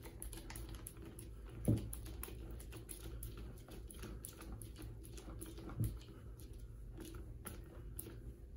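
Jubilee clip (worm-drive hose clamp) being tightened with a small hand driver, making a run of small irregular clicks as it clamps the pipe bag onto the chanter stock. There are two soft thumps, one near 2 seconds in and one near 6 seconds in.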